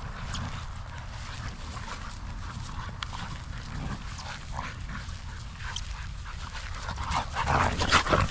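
Two young dogs play-wrestling, with scattered yips and growls. They get louder near the end as the rough play escalates close by.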